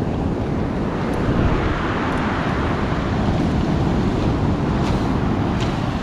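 Storm surf breaking and washing over a pebble beach, with wind buffeting the microphone: a loud steady rush that swells about a second and a half in.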